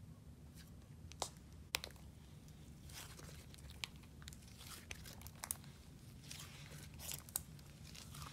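White slime being stretched and pulled apart by hand, giving faint sticky clicks and small crackling pops scattered through, with a cluster near the end.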